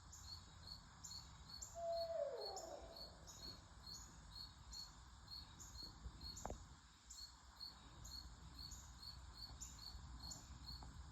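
Unidentified animal calls: a steady rhythm of high chirps, about two a second, with a lower call that slides down in pitch about two seconds in. A single sharp click comes about six and a half seconds in.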